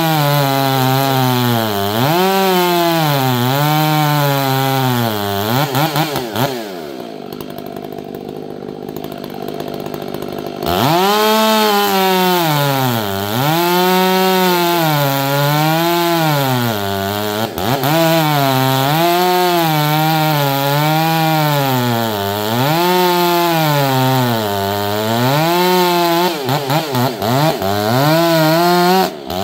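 Chainsaw cutting black walnut hardwood, its engine pitch sagging and recovering again and again, about once every one to two seconds, as it bogs under load in the cut. About a third of the way in it eases off and goes quieter for about four seconds, then goes back to cutting.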